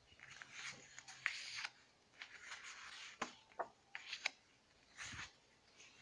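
Sheets of patterned scrapbook paper and card rustling and sliding against each other as they are handled and shuffled by hand, in a string of short rustles with a few light taps.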